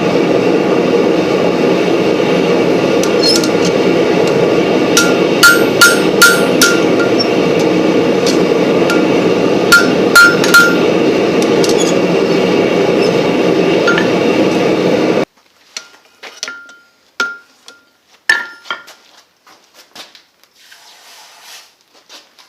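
Hammer blows on hot steel at the anvil in short groups of three or four, each with a bright anvil ring, over a loud steady rushing noise. The rushing noise cuts off suddenly about fifteen seconds in, leaving quieter clinks and taps of metal.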